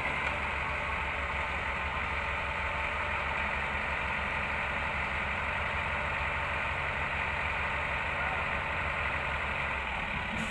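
Heavy diesel engine of a wheel loader running steadily as it slowly tows a truck, a low even rumble with no changes in pitch.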